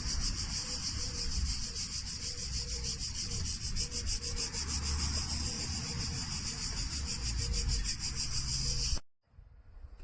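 Rechargeable handheld underwater pool vacuum running: a steady, rough rubbing hiss that cuts off suddenly near the end.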